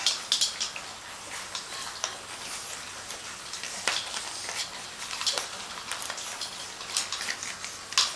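Puppies scrabbling and tugging at a rubber-backed floor mat: irregular light scratches, clicks and rustles of claws and mat.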